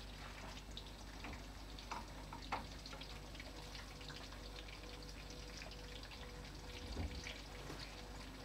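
Quiet room tone: a faint steady hum with a thin, steady tone, broken by a few scattered light ticks and a soft bump about seven seconds in.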